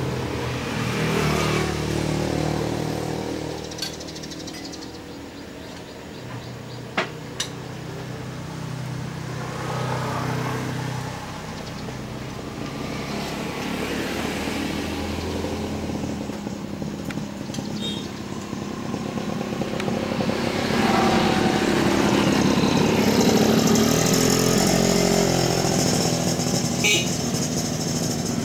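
Engines of passing road vehicles, a steady hum that swells and fades as they go by and grows loudest from about two-thirds of the way in, with a few sharp clicks about seven seconds in.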